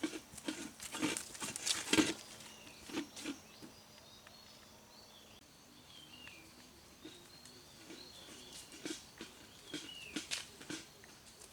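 Irregular light knocks and rustling, strongest in the first few seconds and again near the end, with faint high bird chirps in the quieter middle.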